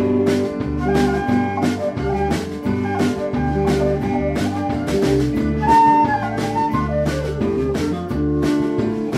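A blues band playing an instrumental passage live, with drums keeping a steady beat under bass and guitar and a lead melody on top that bends in pitch about six seconds in.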